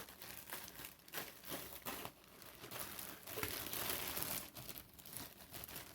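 Plastic shipping bag crinkling and rustling as it is handled and opened by hand, busiest around the middle.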